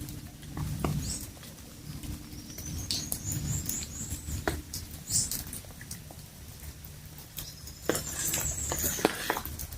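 Outdoor walk in light rain: scattered ticks and patter over a low steady rumble, with brief high chirps about three seconds in and again near the end.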